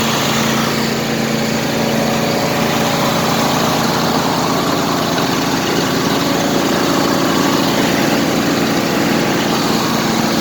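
Craftsman lawn tractor engine running steadily, without backfiring, just after its engine was pressure-washed.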